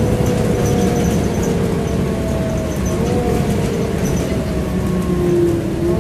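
Volvo B7LA bus's diesel engine and ZF automatic gearbox heard from inside the saloon: a steady low rumble under a whine that slowly falls in pitch, steps back up about three seconds in, then falls again.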